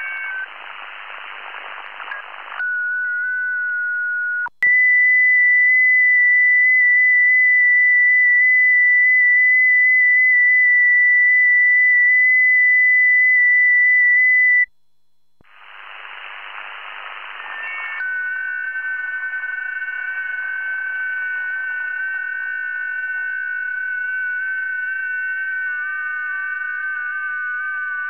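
Shortwave receiver audio on the 40 m FT8 frequency: hiss with several FT8 digital signals heard as steady, slightly stepping tones, which stop a few seconds in. Then a single loud FT8 tone, the station's own transmission, steps slightly in pitch for about ten seconds and cuts off. The receiver hiss fades back in, and several FT8 signals from other stations return about eighteen seconds in.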